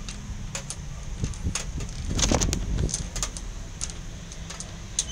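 Domino tiles clicking and clattering against each other and the wooden tabletop as hands shuffle and gather them, in irregular clicks with a busier clatter about halfway through. A steady low hum runs underneath.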